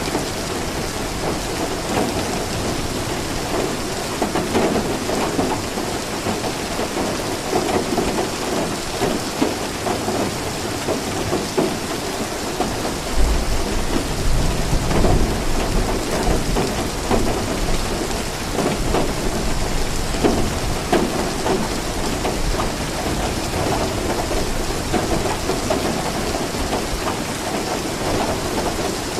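Steady rain falling, with a low rumble of thunder about thirteen seconds in that lasts a few seconds before fading.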